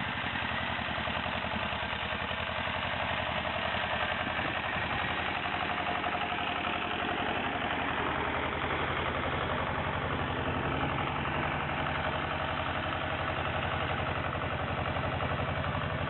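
Small tractor's engine running steadily with an even, rapid beat while it pulls a trailer loaded with logs.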